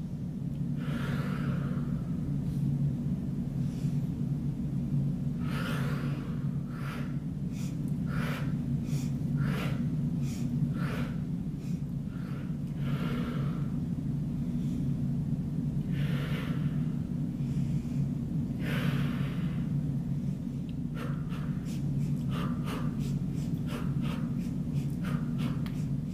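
A person breathing hard in and out while exercising, with one audible puff of breath every second or two, then quicker short breaths near the end. A steady low hum runs underneath.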